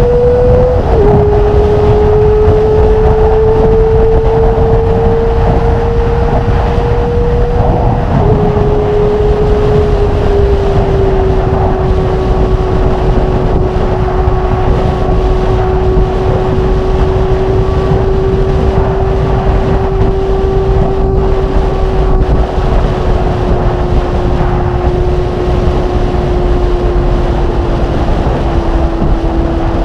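Kawasaki ZX25R's 250 cc inline-four, running at high revs through a Magna aftermarket exhaust while riding. The note drops sharply twice, about a second in and about eight seconds in, as the bike shifts up, then holds a long steady cruise with the pitch slowly falling. Wind rushes over the microphone underneath.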